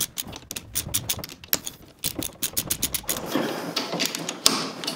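Socket ratchet clicking in quick runs as a bolt on the handbrake lever mechanism is worked loose, followed by a softer scraping stretch.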